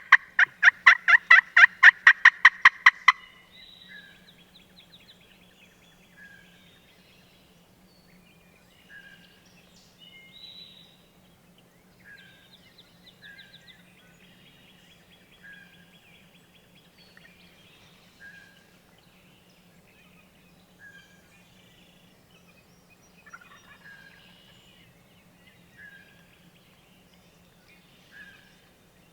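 Wild turkey calling close by: a loud, rapid run of about eight notes a second that stops about three seconds in. After it, faint songbirds call, one short note repeating every two to three seconds.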